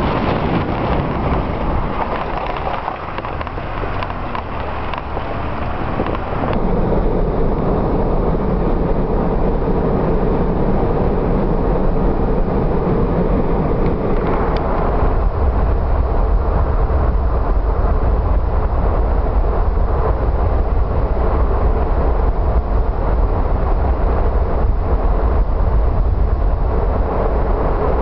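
Steady road noise from inside a moving car. It shifts abruptly about six and a half seconds in to a louder, steadier low tyre rumble, as the drive moves from a gravel dirt road onto paved highway.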